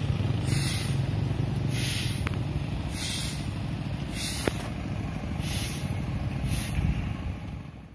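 Motorcycle engine running as it rides over a railway level crossing, a steady low rumble that eases off toward the end. A short hiss repeats about once a second throughout.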